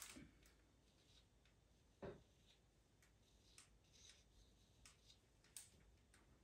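Near silence with a few faint, short scratches of a pastel pencil stroking pastel mat paper, and a soft knock about two seconds in.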